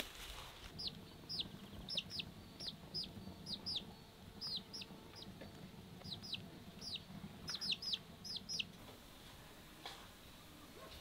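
Chick peeping: a run of short, high, falling peeps, two or three a second, that stops about nine seconds in.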